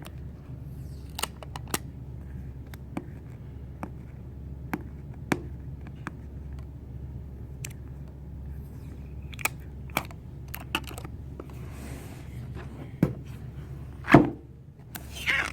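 A speaker's retail box being handled and opened by hand: scattered light clicks and taps, one loud knock near the end, then a short rustle or tear of packaging, over a steady low hum.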